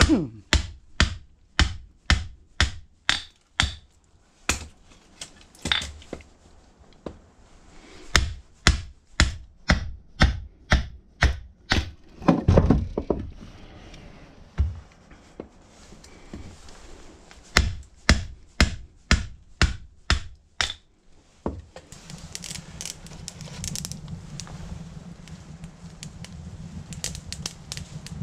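Hatchet splitting kindling: runs of sharp wooden chops, two or three a second, broken by short pauses. In the last several seconds the chopping stops and a steady low hum with light crackling takes over.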